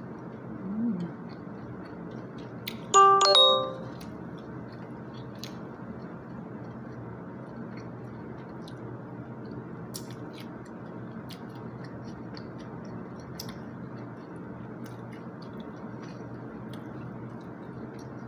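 A short, loud two-note chime about three seconds in, over a steady low room hum with faint clicks of plastic utensils. Just before the chime comes a brief closed-mouth 'mm' of someone enjoying a mouthful.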